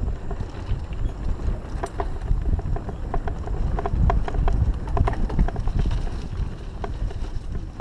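Mountain bike rolling over a rough dirt and loose-stone trail, with quick irregular rattles and clicks from the bike over bumps above a steady low rumble of wind and riding noise on the handlebar-mounted camera.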